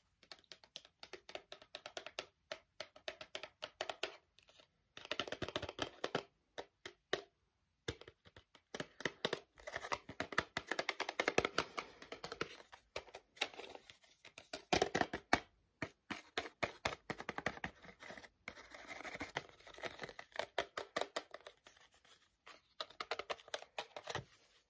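Rapid finger tapping on a small retail package held close to the microphone, in quick runs of clicks broken by stretches of dense scratching and rubbing on its surface.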